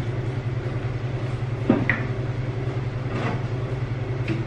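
Light metal knocks and a brief ringing clink as a springer front end and chopper frame parts are handled, over a steady low rhythmic drone.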